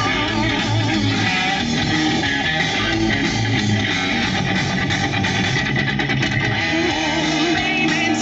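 Rock music playing: electric guitars and bass with a steady beat and a singing voice.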